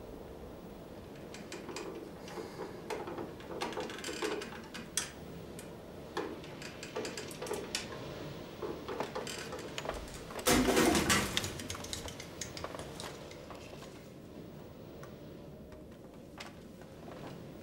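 Scattered light clicks and clinks of small objects being handled, with a louder rattling scrape about ten seconds in.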